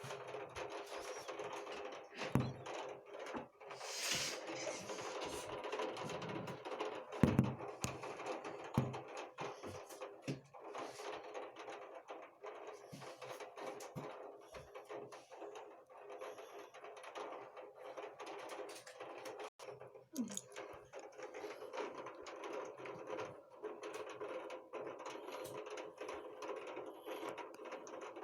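Heavy downpour: rain pattering, with dense sharp ticks of drops striking a hard surface, and a few louder thumps in the first ten seconds.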